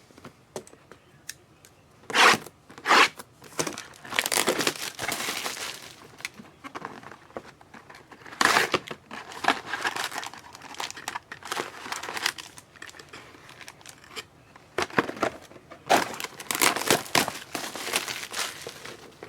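Trading-card pack wrappers being torn open and crinkled by hand, in several crackly bursts with short pauses between.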